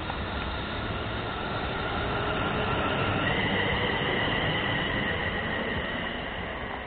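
London Midland Class 350 Desiro electric multiple unit running past and drawing away: wheels rumbling on the rails under a steady electric whine from the traction equipment, which jumps up in pitch about three seconds in. The train is loudest midway and then fades.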